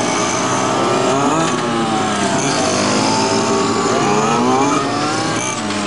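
Several radio-controlled model race cars' small two-stroke engines running at once, their overlapping high pitches rising and falling as they rev up and back off.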